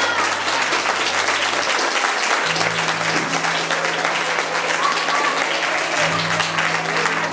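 Audience applauding steadily, with background music playing underneath.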